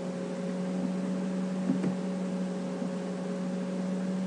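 Steady low hum over an even hiss: the background noise of a home narration recording between spoken lines.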